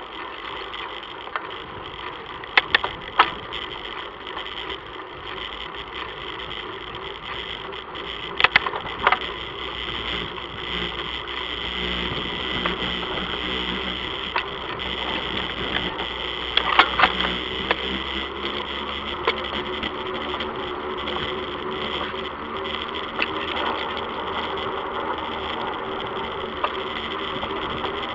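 Bicycle rolling along an asphalt road: steady tyre and wind noise, with a few sharp rattles from bumps a few seconds in, around nine seconds and around seventeen seconds.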